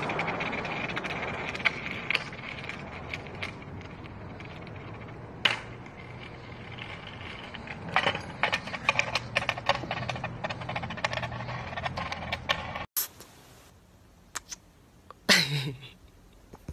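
Skateboard wheels rolling over rough concrete under a small dog, a steady rumble with frequent clicks and rattles over grit and joints. It cuts off abruptly about 13 seconds in, and a single short loud sound follows about two seconds later.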